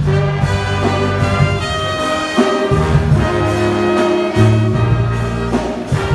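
A school fight song played loudly by brass instruments with a strong bass line.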